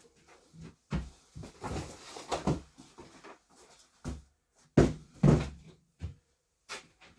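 Irregular knocks and clunks of objects being handled, moved and set down, with the two loudest thumps a little under five seconds in and about half a second later.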